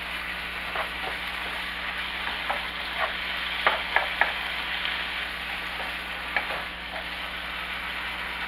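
Thin-shaved chicken and steak sizzling steadily as they fry in a nonstick skillet, stirred with a wooden spatula that taps and scrapes against the pan now and then, with a quick run of sharper taps about four seconds in.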